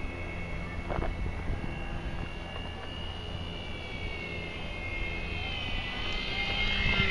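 Electric motor and propeller of a ParkZone P-47 RC model plane whining in flight, growing louder and rising slightly in pitch near the end as it comes closer.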